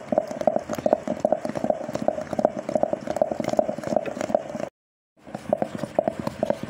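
Hand churner (madhani) spun back and forth in a steel pot of cream: a fast, rhythmic clatter and knocking of the churner against the pot with a wet churning of the cream, which is just turning smooth and thick on its way to butter. The sound drops out for about half a second near the end.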